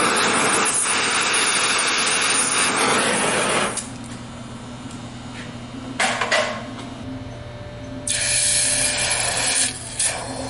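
Gas torch flame hissing loudly as it heats a steel bearing adapter ring clamped in a vise, cutting off a little under four seconds in, with a few clicks about six seconds in. About eight seconds in there is a higher hiss as the hot ring is quenched in a bucket of water, which is meant to shrink the ring for a tighter press fit on the axle spindle.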